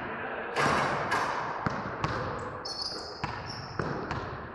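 An irregular series of sharp knocks, about two a second, over a steady background noise.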